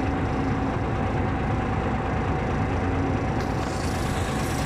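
Heavy diesel construction machinery running steadily, a low engine drone with a steady whine over it; a hiss joins in about three and a half seconds in.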